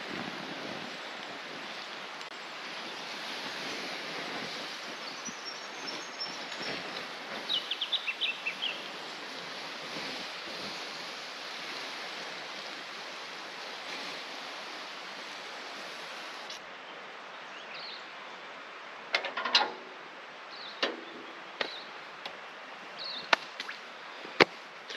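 Hot campfire coals and ash hissing steadily as water is poured on them to put the fire out, with a few short high chirps about a third of the way in. The hiss stops about two-thirds of the way through, leaving a quieter background with a few sharp knocks.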